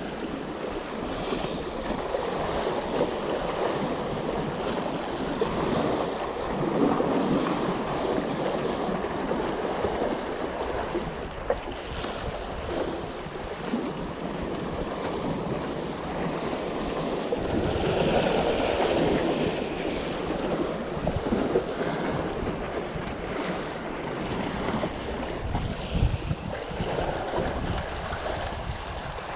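Small sea waves washing and splashing against the boulders of a rock breakwater, surging louder now and then, with wind buffeting the microphone.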